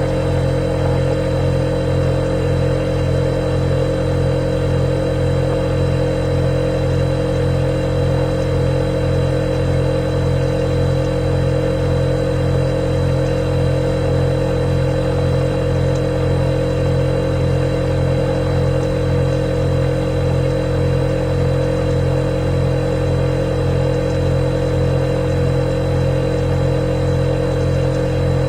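Refrigerator running with a steady, unbroken hum, with an even fast pulsing in its low tones.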